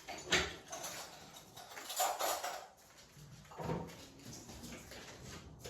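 A dog in the room making a few short sounds.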